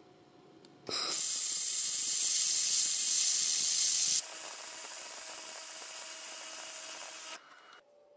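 Handheld 700 W fiber laser welder running a wire-fed weld on 1 mm mild steel under nitrogen shielding gas: a steady hiss starts about a second in, drops to a softer hiss with a faint hum about four seconds in, and cuts off suddenly near the end.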